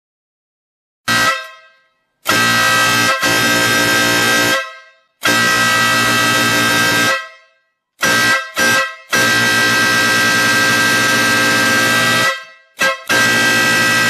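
Compact electric air horn with a built-in air pump, powered from a battery, sounding a steady loud blare in repeated blasts: a short toot, three long blasts of about two to three seconds, a pair of quick toots, and a final short toot plus a one-second blast. Each blast tails off briefly after it is cut.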